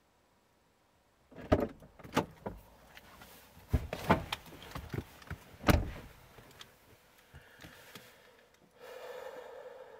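A person getting into a car's driver seat: rustling and a series of knocks and clunks, the loudest about six seconds in as the door shuts. A steady hum sets in near the end.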